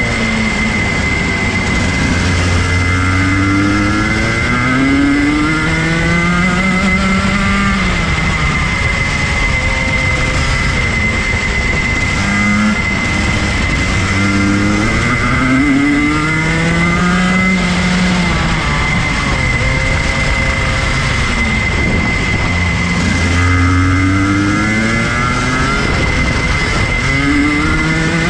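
Rotax Max Junior kart's 125cc two-stroke engine at racing speed, its revs climbing on the straights and dropping for the corners, several times over. A steady high tone runs underneath.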